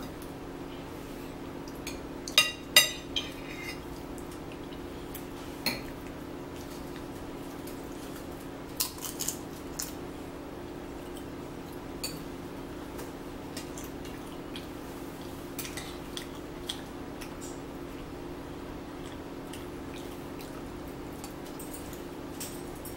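Cutlery clicking and scraping against plates and dishes during a meal: scattered sharp clinks, the loudest pair about two and a half seconds in and a small cluster near nine seconds, over a steady low hum.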